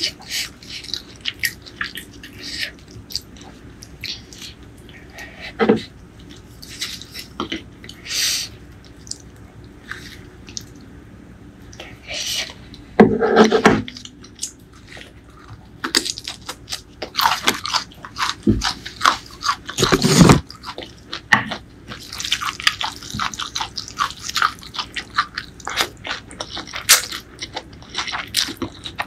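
Close-miked eating: crisp crunching and chewing of raw green vegetables, with sharp snaps and a few much louder bites about halfway through. Near the end, noodles are drawn into the mouth from chopsticks.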